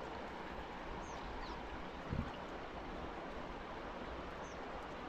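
Fast creek water rushing steadily, with a brief low thump about two seconds in and a few faint high chirps.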